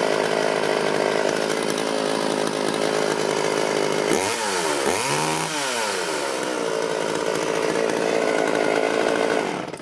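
Sachs Dolmar 105 two-stroke chainsaw engine running steadily, then cut off abruptly by its ignition kill switch near the end, showing the repaired off switch now works.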